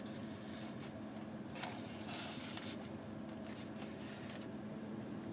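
Soft scraping and rustling of a utensil stirring rice into a takeout bowl of beef and broccoli, with a few light clicks. A steady low hum runs underneath inside the vehicle cabin.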